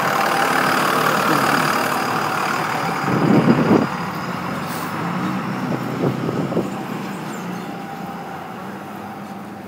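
Large truck's engine running as it passes and moves away, growing steadily fainter, with a short clattering rattle about three and a half seconds in and a few knocks around six seconds.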